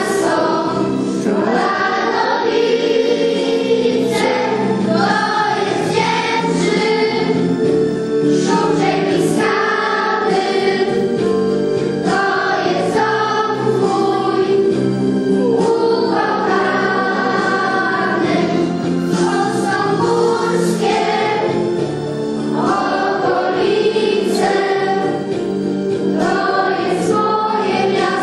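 A church congregation singing a hymn together, many voices holding long notes.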